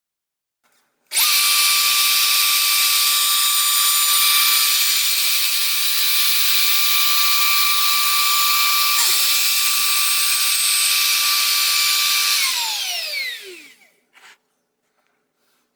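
A router motor is switched on with a sudden start and runs at a steady high whine for about eleven seconds. It is then switched off and winds down, its pitch falling until it stops.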